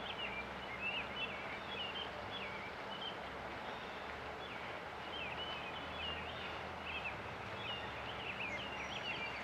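Small songbirds chirping in quick, repeated high notes throughout, over the steady rush of a river.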